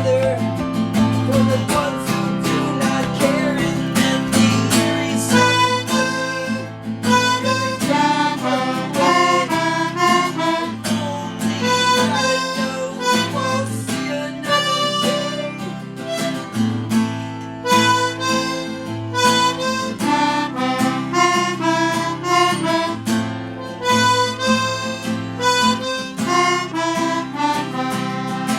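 Instrumental break in a song: a harmonica plays a melody of quick runs of notes over strummed acoustic guitar.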